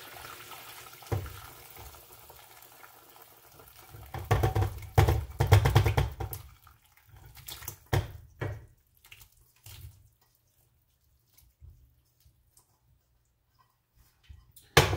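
Hot chicken gravy poured from a stainless steel pot into a serving dish: a steady pour of liquid, then louder splashing and scraping as the chicken pieces slide out, about four to six seconds in. A few knocks follow, then it goes quiet, with one sharp metallic clack near the end.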